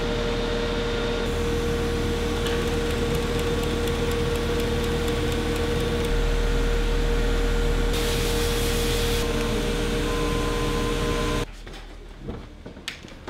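Industrial sewing machine stitching nylon belt webbing over a steady workshop machinery hum, with rapid even ticking in the first half. Near the end the hum cuts off and a door handle clicks.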